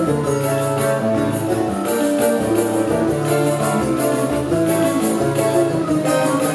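Instrumental ensemble playing: plucked strings over a moving bass line, kept by a steady beat of high percussion ticks.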